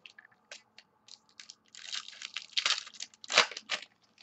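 Foil wrapper of a 2014 Bowman Platinum baseball card pack crinkling and tearing as the pack is opened. It sounds as a string of irregular crackles and crunches, loudest from about two to three and a half seconds in.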